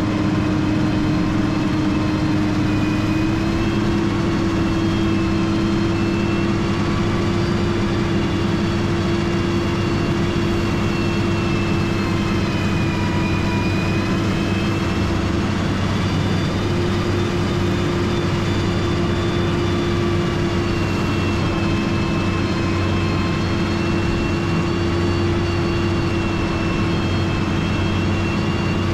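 Motor grader's diesel engine running steadily under work, with a steady drone and a high whine that drifts slightly up and down in pitch.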